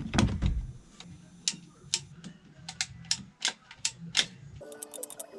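Work-handling noise: two heavy knocks at the start, then scattered sharp clicks and taps of parts and tools being handled. Near the end the sound changes abruptly to a quicker run of small ticks.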